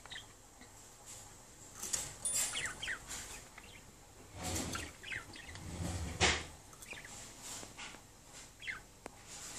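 Budgerigars chattering in quick short chirps, with rustling and a sharp knock about six seconds in.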